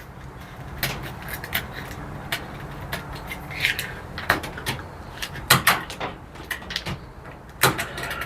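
A door being worked open: a string of sharp clicks and knocks from its latch and hardware, over a low steady hum.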